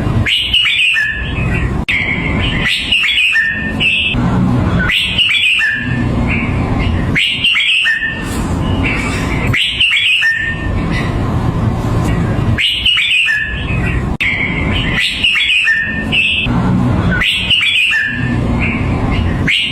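Red-whiskered bulbul singing its short whistled phrase over and over, about one phrase every two seconds, over a steady low rumble.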